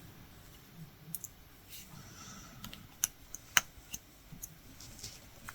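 Latch hook tool clicking as yarn is knotted through rug canvas: a few sharp clicks at irregular intervals, two of them louder, about three and three and a half seconds in.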